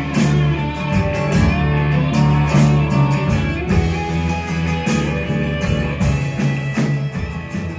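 Band music: guitar and bass over a steady drum beat, starting to fade out near the end.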